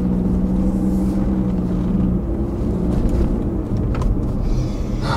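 A car running, with engine and road noise as a steady low drone; a steady hum in it drops away about two seconds in.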